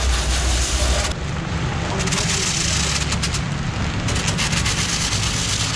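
Handheld angle grinder grinding the rubber tread of a large 29.5R25 loader tyre, with a steady, rough grinding noise. A deep low hum drops out about a second in.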